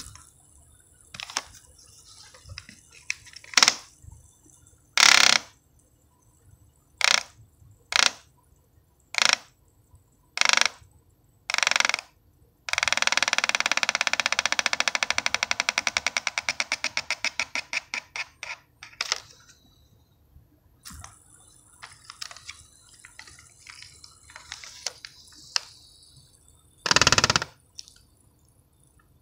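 Red plastic fidget spinner flicked by hand again and again, each flick a brief whir. About 13 seconds in, one spin runs for about six seconds as a fast, even buzzing pulse that gradually slows and fades.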